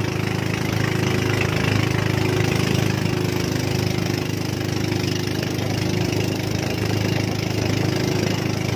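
Engine of a motorized outrigger fishing boat (bangka) running steadily at an even speed.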